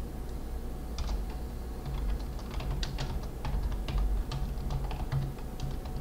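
Typing on a computer keyboard: a quick, uneven run of key clicks that starts about a second in and stops shortly before the end.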